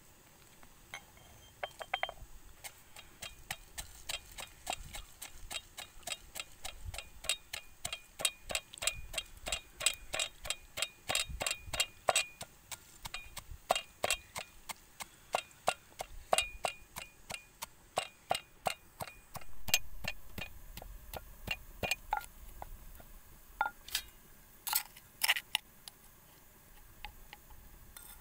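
Wooden pestle pounding peanuts in a clay mortar: a steady run of sharp knocks, about three a second, that stops a few seconds before the end, followed by a few separate louder knocks.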